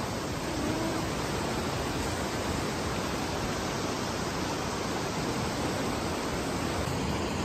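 Steady rush of flowing river water running over rocks.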